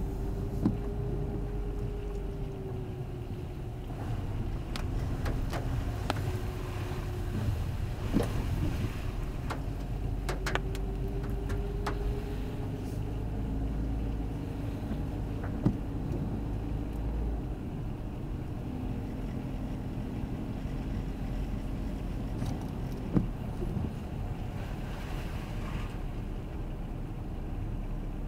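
Car driving on a wet, slushy road, heard from inside the cabin: a steady low road rumble with a faint hum that drifts up and down in pitch with speed. A few sharp knocks come through now and then.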